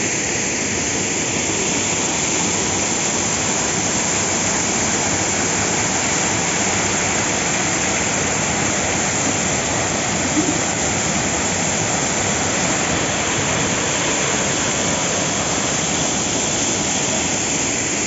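Waterfall's steady rush as water pours onto rocks close by.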